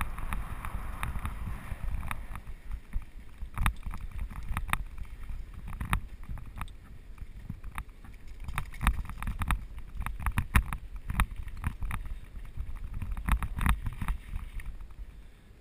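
Mountain bike riding over a rough dirt trail: wind rumbling on the action camera's microphone, with frequent irregular clatters and knocks as the bike rattles over bumps.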